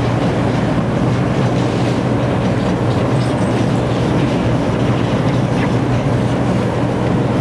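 Steady low rumbling background noise, even and unbroken, with a strong low hum.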